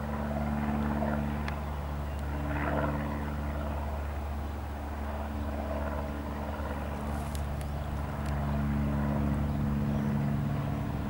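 Cessna 172R Skyhawk's four-cylinder Lycoming engine and two-blade propeller at climb power just after takeoff: a steady drone, a little louder in the second half.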